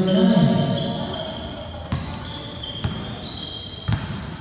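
A voice calls out at the start, then a basketball bounces on the court floor four times, about a second apart. Short, high sneaker squeaks come between the bounces.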